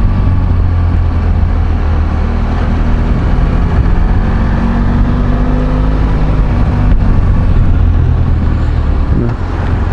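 Motorcycle engine running under way, with steady wind and road noise over the mic. The engine note rises slightly in pitch mid-way and eases off briefly near the end.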